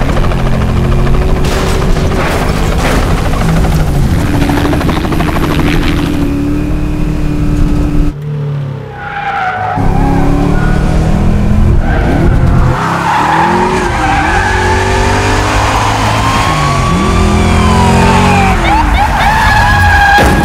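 Car-chase soundtrack: a Chevrolet Chevelle SS's V8 engine revving hard through gear changes, falling away briefly about eight seconds in. After that, tyres squeal in long wavering wails over the engine noise through hard turns.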